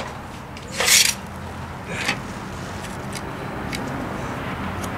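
Spirit level being laid and slid on a bluestone slab: a short scrape about a second in, a shorter one about two seconds in, then a few light clicks, over a steady low background rumble.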